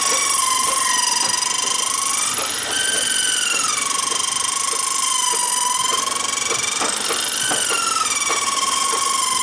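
A continuous high metallic squeal whose pitch slowly wavers up and down, with scattered clicks, from the slipway carriage as the boat hull is hauled along the rails.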